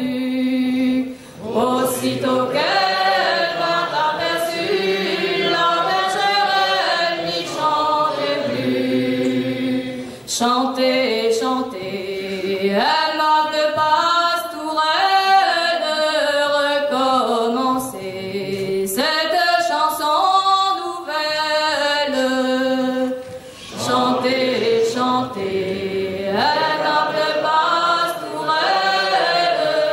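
Unaccompanied traditional Gallo song sung call-and-response: a lead singer gives out the lines and many voices sing them back. Short breaks between phrases come about a second in, about ten seconds in and about twenty-three seconds in.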